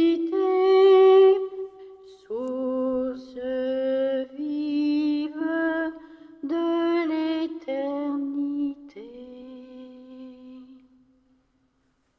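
A single unaccompanied voice sings a slow hymn in long held notes. The final note is held and fades out about eleven seconds in.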